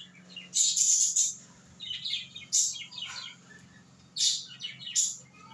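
Small birds chirping in three short bursts of quick, high calls with quieter gaps between them, over a faint steady low hum.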